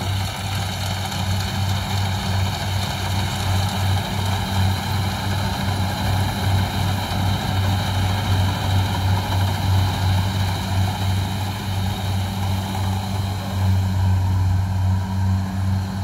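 Rice combine harvester running steadily as it harvests: a steady low engine drone with a thin, steady higher whine over it.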